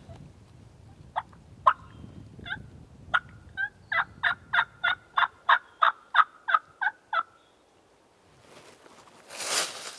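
Wild turkey yelping: a few scattered notes, then a steady run of about eleven sharp yelps, roughly three a second. A brief noisy swell follows near the end.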